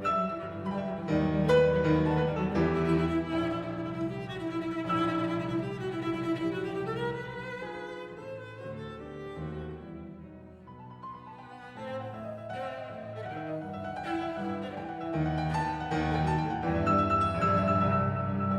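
Instrumental music led by bowed strings, played back through Elfton Vegas II four-way hi-fi loudspeakers. It grows quieter about halfway through, then swells again.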